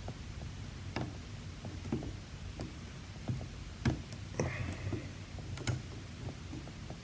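Irregular light clicks and ticks of a lock pick and tension wrench working the pins of a Yale-style pin-tumbler lock, with a short scratchy scrape about halfway through.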